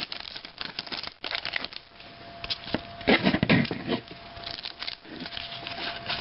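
Trading-card pack wrappers crinkling and cards being handled and pulled apart, with a louder spell of crinkling about three seconds in.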